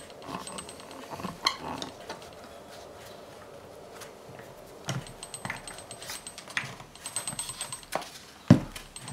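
A steel screw clamp pressing wooden boards onto a shoe sole being tightened and handled: scattered light metallic clicks and rattles, with a sharp knock near the end as the clamped shoe is set back on the workbench.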